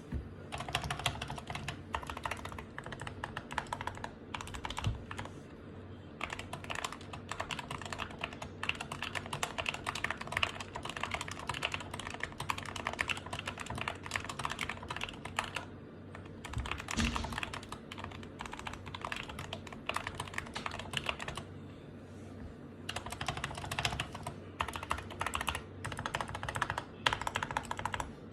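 Typing on a modded SK61 keyboard with lubed Gateron optical black linear switches: quick runs of keystrokes in spurts, broken by a few short pauses.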